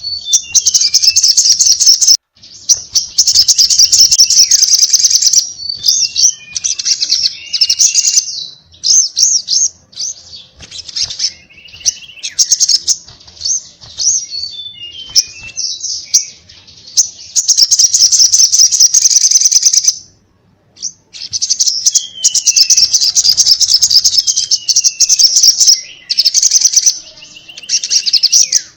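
Crimson sunbird (sogon) singing in long bursts of rapid, high-pitched trilled chatter, mixed with short down-slurred notes. There is a short break about two-thirds of the way through. This is the bird's fast, aggressive 'ngobra' song that keepers use to provoke other males to answer.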